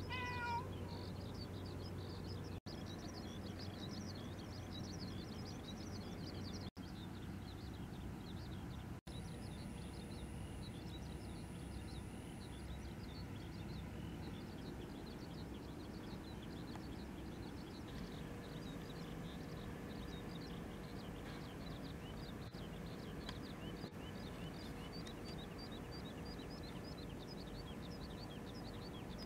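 Outdoor ambience: a steady low rumble with many small birds chirping throughout. A brief, louder falling call comes right at the start. The sound cuts out for an instant three times.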